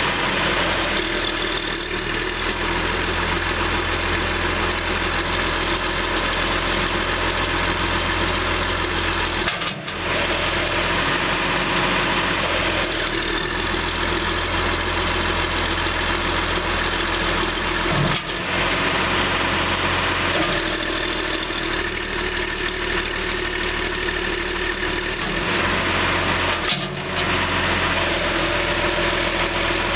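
John Deere 710D backhoe's diesel engine running steadily, with three brief dips in the sound about 10, 18 and 27 seconds in.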